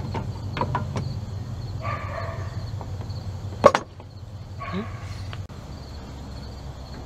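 A Dodge Dakota windshield wiper arm being worked off its pivot post by hand: small clicks and scraping, then one sharp snap about halfway through as the arm pops free.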